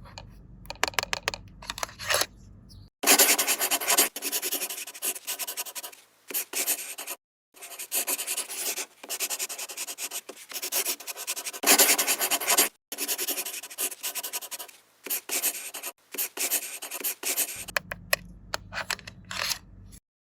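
A pen writing on paper: dense scratching strokes in runs of a second or more, with a few short pauses, as an entry is written into a toy medical record.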